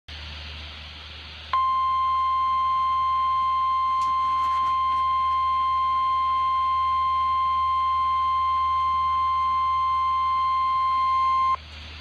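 NOAA Weather Radio warning alarm tone from a Midland weather alert radio's speaker: one steady, high-pitched tone held for about ten seconds that cuts off sharply. It signals that a watch or warning message follows, here a severe thunderstorm watch. Radio hiss comes before the tone starts, a second or so in.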